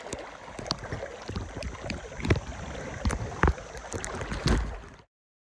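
Knocks and bumps in a small fishing boat over wind and water noise, with a handful of sharp knocks, the loudest about two and a half and three and a half seconds in. The sound cuts off to dead silence about five seconds in.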